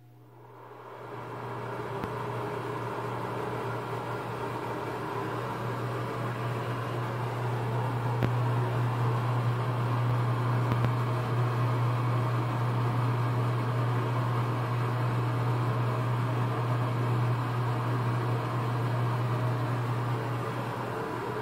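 Nutone bathroom exhaust fan switched on and spinning up over the first couple of seconds, then running steadily with a low motor hum under the rush of air.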